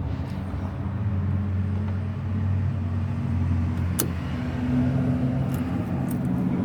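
A car engine running steadily at idle, with a single sharp click about four seconds in.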